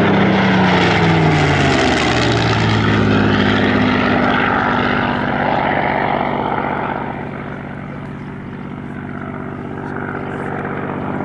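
A Spitfire PR XI's Rolls-Royce Merlin V12 engine and propeller in a flypast. The engine note drops in pitch as it passes during the first two seconds, then the sound fades and begins to grow again near the end.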